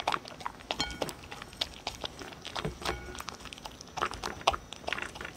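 Dog eating kibble mixed with sweet potato, paprika and beef from a ceramic bowl: irregular crunching and chewing, with a couple of brief clinks of food against the bowl.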